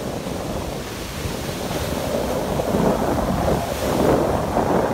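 Heavy ocean surf breaking and crashing onto rocks, a continuous rush of churning water that swells louder about halfway through.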